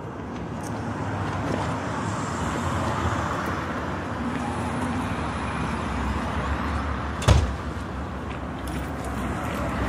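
Intro sound effect: a steady rushing noise with one sharp hit about seven seconds in.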